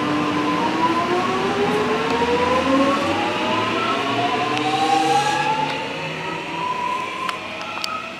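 Alstom X'Trapolis 100 electric multiple unit pulling away from the platform, its traction motors giving a whine that rises steadily in pitch as it picks up speed. A couple of sharp clicks come near the end.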